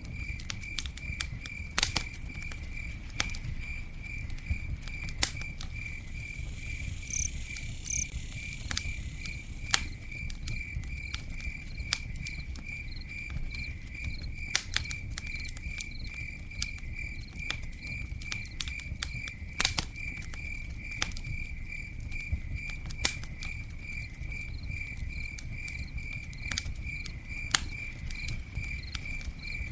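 Campfire crackling, with scattered sharp pops over a low, steady rumble of burning. A cricket chirps steadily throughout in an even pulse, about three chirps a second.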